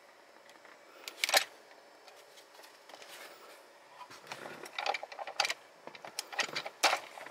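Small screwdriver prying at a plastic wiring connector on a seat-belt retractor to unplug it: a few sharp clicks about a second in, then a quicker run of clicks and rattles near the end.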